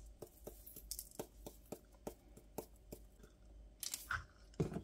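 Faint, quick clicks and taps of a plastic measuring spoon against a plastic funnel as lemon pepper seasoning is knocked through into a glass shaker jar, a few taps a second, with a couple of louder knocks near the end.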